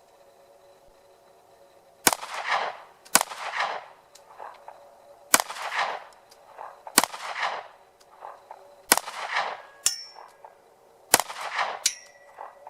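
A Ruger LC9s Pro 9mm compact pistol firing six shots at a slow, uneven pace, about one to two seconds apart, each with a short echo. Near the end there are two short metallic rings.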